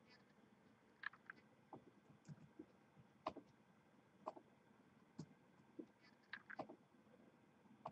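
Faint computer mouse clicks, about a dozen short separate clicks at irregular intervals, some in quick pairs.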